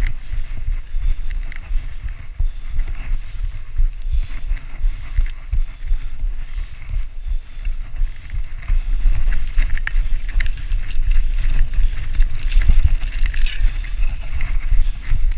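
Mountain bike ridden fast down a dirt singletrack: wind buffeting the handlebar camera's microphone, with the crunch of tyres on dirt and frequent rattling clicks from the bike over bumps. It gets louder from about nine seconds in.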